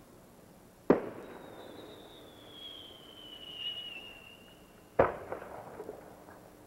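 Aerial fireworks: a sharp bang about a second in, then a high whistle slowly falling in pitch for about three and a half seconds, ending in a second bang with a few small crackles after it.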